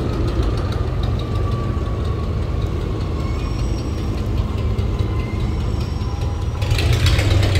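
Diesel engine of a heavily laden stone-carrying barge running with a steady low rumble as the barge pushes through a sluice gate. A rushing hiss comes in near the end.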